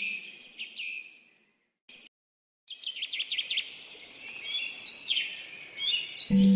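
Several songbirds chirping and singing in quick, overlapping phrases. The sound cuts out to silence for about a second, a second and a half in, then the birdsong resumes. Near the end a low, steady tone like a singing bowl comes in under the birds.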